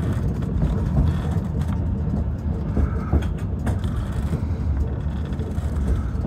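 Yellow Train narrow-gauge railcar running, heard from inside the passenger car: a steady low rumble with a few sharp clicks from the wheels as it rolls over the switches into the station.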